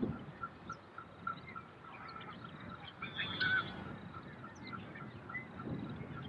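Birds calling, one with a short note repeated about three times a second, other chirps scattered around it, and a louder call a little over three seconds in.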